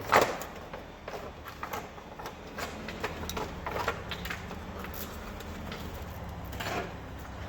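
Handling noise of a circular saw blade being fitted onto a miter saw: a sharp knock just after the start, then scattered light clicks and knocks of metal parts being handled, over a steady low hum.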